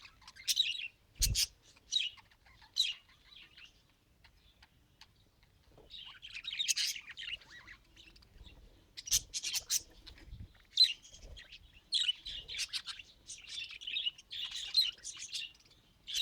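Budgerigar chirping and chattering: a few short chirps, a pause of about two seconds, then denser warbling chatter. A sharp tap sounds about a second in.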